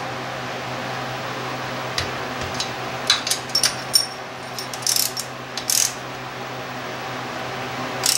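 Torque wrench ratcheting and clicking on the cylinder-head bolts of a Kohler lawn-tractor engine as they are drawn down to 15 foot-pounds: scattered short metallic clicks and ticks, with a cluster a few seconds in, over a steady low hum.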